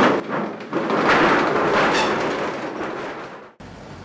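Metal rolling shop shutter rattling as it is pulled down, then cut off abruptly about three and a half seconds in.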